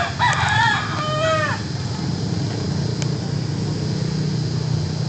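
A rooster crowing once, a pitched call of about a second and a half at the start that ends in a drawn-out falling note, over a steady low rumble.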